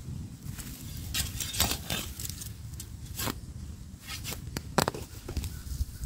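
Weeds being pulled up by hand from loose soil: a few short crackling rips as roots tear free and dirt drops off, the loudest near the end.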